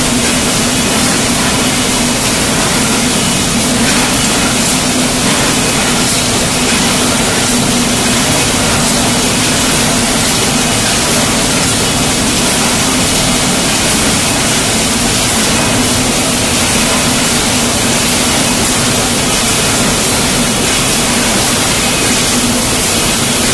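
Steady loud din of an automatic paint-can body production line, its conveyors carrying tinplate 5 L can bodies, with a constant low hum and a few faint clicks.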